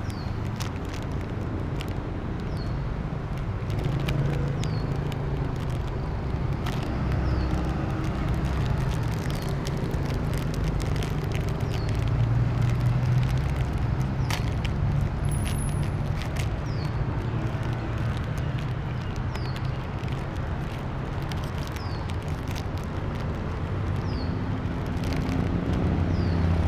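Steady rumble of road traffic, with scattered faint clicks and a short, high, falling chirp that repeats every two seconds or so.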